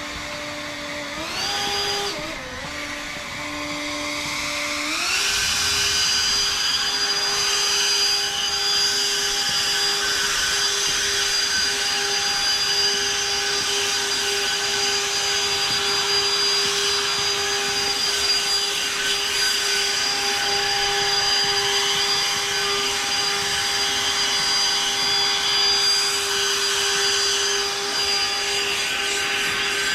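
Battery-powered electric lawn equipment running, a steady motor whine with a higher whine above it. Its speed steps up about a second in, dips briefly, then rises again near five seconds and holds steady.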